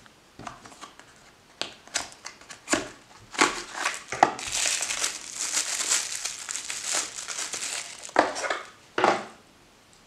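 Light clicks and taps from the knife's box, then clear plastic wrapping crinkling for about three seconds as a folding knife is pulled out of it, with a couple of shorter rustles near the end.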